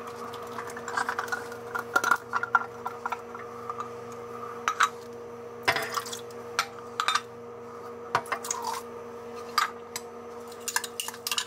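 Canned tomatoes and beans being emptied into a slow cooker: scattered clinks and scrapes of utensils against cans and the pot, with wet plops, over a steady low hum.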